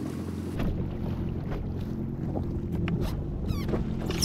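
Wind buffeting the microphone over steady water noise on a drifting jet ski at sea, with a few faint clicks.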